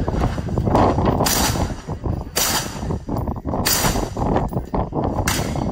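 Gunshots on a shooting range, four evenly spaced shots about a second and a quarter apart, each with a short echo, over steady low background noise.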